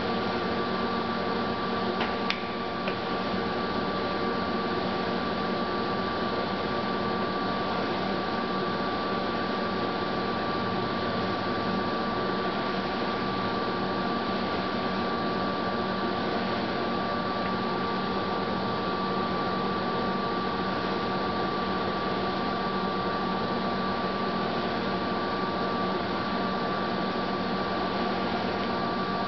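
Lodge & Shipley Magnaturn engine lathe running under power, a steady hum from its drive and gearing with a high whine held at one pitch. A single sharp click about two seconds in.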